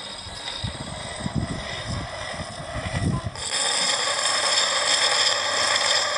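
An axe blade ground against a large turning sharpening stone. There are low irregular knocks from the wheel's mechanism at first, then about halfway through a steady, louder scraping hiss of steel on stone.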